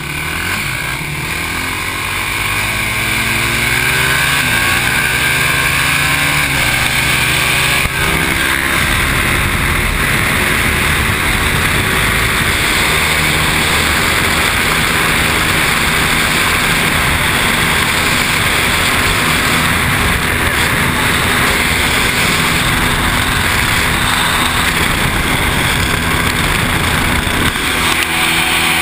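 Quad (ATV) engine accelerating hard, its pitch climbing over the first few seconds, then held at high revs under a loud, steady rush of wind on the onboard microphone. Near the end the engine note drops as it slows.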